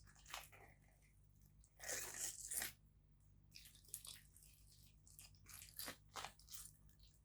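Faint, irregular handling noises of raw beef liver being cleaned, with one longer noisy stretch about two seconds in.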